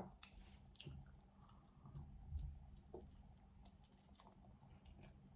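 Faint close-up chewing of a grinder sandwich: soft, wet mouth clicks and chewing noises, with one sharper click right at the start.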